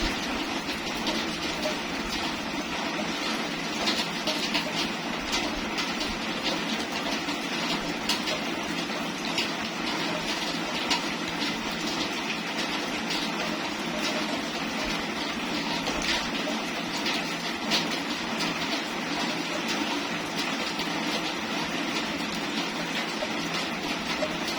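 Steady rain falling, an even hiss dotted with many small sharp drop impacts.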